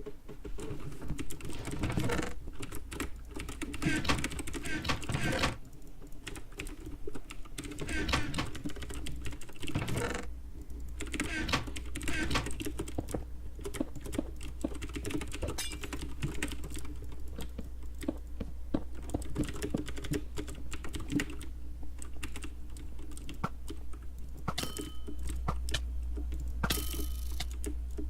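Typing on a computer keyboard: rapid, irregular keystrokes in flurries, over a steady low hum.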